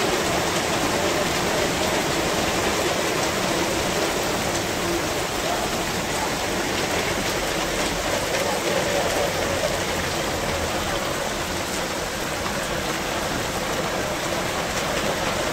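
Heavy rain mixed with hail pouring down onto a flooded street, a steady, even hiss of falling water and ice.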